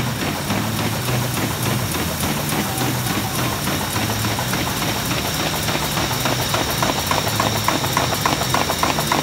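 MBO T960 paper folding machine running at production speed, feeding 12,500 sheets an hour: a steady mechanical hum under a regular rapid clatter, about three or four beats a second, which gets louder over the last few seconds.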